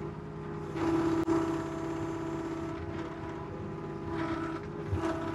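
Excavator engine and hydraulics running steadily as the bucket drags dirt along a trail, getting louder under load for a couple of seconds from about a second in, with one sharp click.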